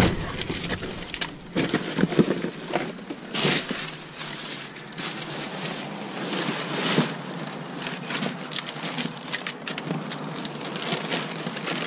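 Plastic wrap and cardboard rustling and crinkling as gloved hands rummage through rubbish, with scattered knocks and clicks of plastic bottles being handled.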